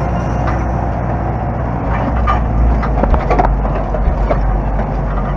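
Zetor 7745 tractor's four-cylinder diesel engine running under way, heard from inside the cab, with a steady low drone. Short knocks and rattles from the cab come in about two to three and a half seconds in.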